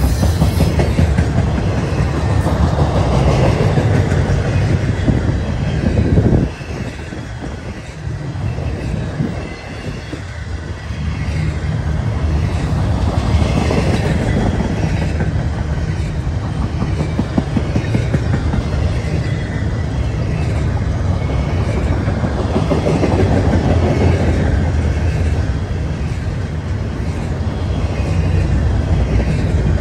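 Double-stack container well cars of a CSX intermodal freight train rolling past: a steady, loud rumble of steel wheels on the rails with a rhythmic clickety-clack. The sound drops briefly about six seconds in, then builds back up.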